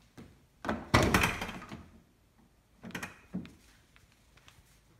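Ford Mustang car door being worked: a loud cluster of latch and door clunks about a second in, then a second, smaller set of clunks with a dull thud around three seconds in.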